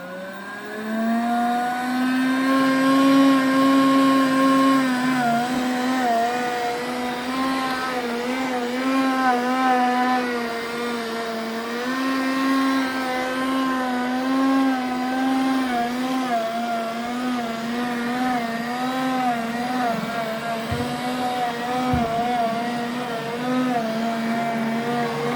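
Roborock S5 robot vacuum running with a strange, loud whine that rises as it spins up in the first second or two, then holds with a slightly wavering pitch: a fault noise that came with a smell of burnt plastic.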